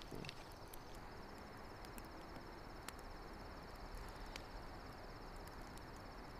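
Crickets chirring in a steady high trill at night, with a few faint crackles from a campfire, the clearest about three and four and a half seconds in.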